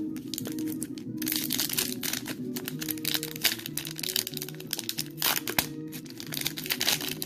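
Crinkling and crumpling of a foil Pokémon booster pack wrapper being handled and opened, in dense crackly bursts, over background music playing a simple stepping tune.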